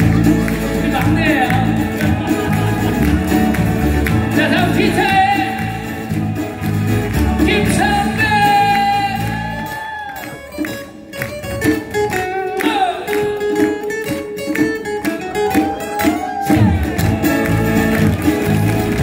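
A live acoustic band plays a song with a singer: acoustic guitars, electric bass, cajon and keyboard. About ten seconds in, the bass and low end drop away for a lighter, quieter passage. The full band comes back in near the end.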